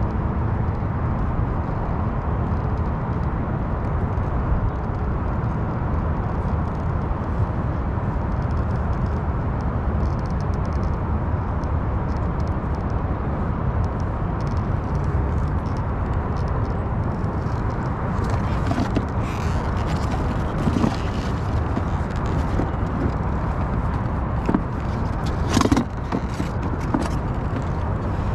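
Steady wind buffeting the microphone high on a skyscraper's outside wall. From about two-thirds of the way in come scattered small clicks and scrapes of hands working the light fixture's wires.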